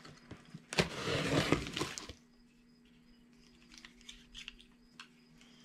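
A utility knife slicing through packing tape along the seam of a cardboard box: one scraping, tearing cut lasting about a second. A few faint clicks follow near the end, typical of the knife's blade slider being worked.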